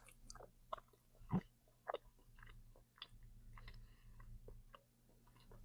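Faint close-up mouth sounds of someone chewing food: scattered soft wet clicks and smacks, the loudest about a second and a half in.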